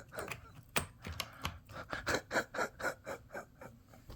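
Small hard parts of an RC truck's opened rear differential clicking and scraping as they are handled, a quick run of clicks about four a second.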